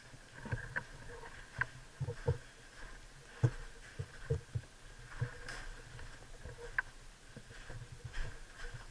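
Slow footsteps on a concrete floor strewn with grit and rubble, an uneven series of low knocks and scuffs, with a few sharper clicks mixed in.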